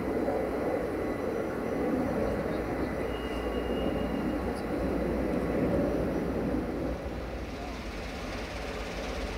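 Jet airliner flying overhead, a steady engine rumble. About seven seconds in it drops away to quieter background noise.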